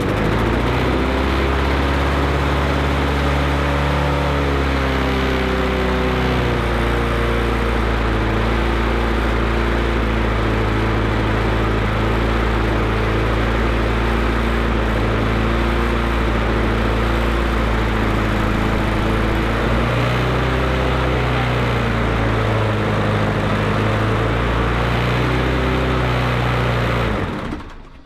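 Mountfield self-propelled mower's Briggs & Stratton single-cylinder petrol engine running, its speed hunting up and down instead of holding steady. It cuts out about a second before the end. The owner puts the hunting down to the cheap pattern carburettor gasket and diaphragm, which curl up and fail in fuel.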